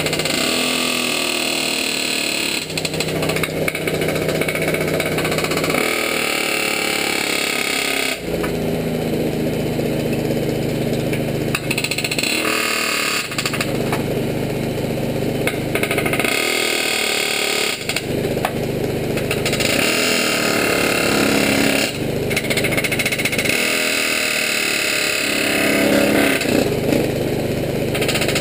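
Pneumatic air hammer chattering in runs of a few seconds against the steel of a truck frame, driving out rivets whose heads have been torched off. An engine runs steadily underneath.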